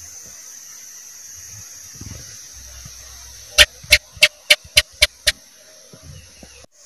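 House gecko (cicak) calling: a quick run of about seven sharp chirps, roughly four a second, the first the loudest, over a steady high hiss.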